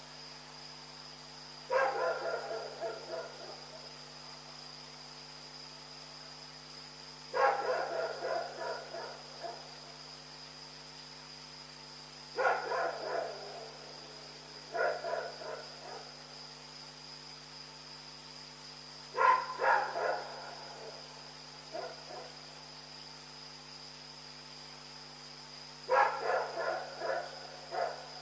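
Dog barking in short runs of several quick barks, the runs repeated every few seconds.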